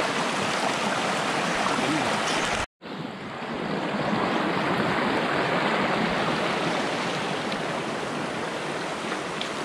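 Steady rushing of a rocky mountain stream, water pouring over stones and rock ledges. The sound drops out completely for a split second about three seconds in, then the flow carries on.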